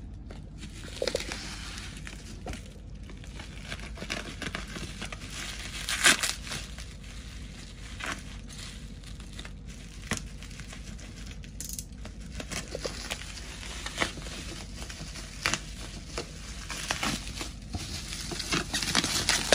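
Plastic bubble wrap crinkling and crackling as it is cut with a blade and pulled open by hand, in irregular short sharp crackles, with one louder crack about six seconds in and busier handling near the end.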